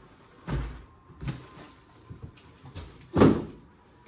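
Cardboard boxes being handled on a table: a couple of dull thumps, then a louder cardboard thud with a brief scrape about three seconds in.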